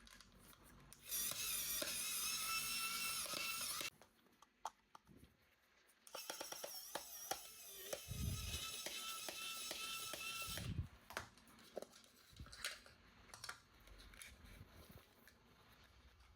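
Two stretches of a high-pitched electronic toy tune or sound effect, the first about a second in and lasting about three seconds, the second about two seconds later and lasting about five. Clicks and handling noise of plastic toys come between and after, with two low thumps.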